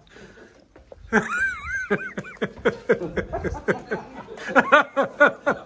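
A person laughing hard: a drawn-out rising and falling whoop about a second in, then a long run of quick ha-ha bursts.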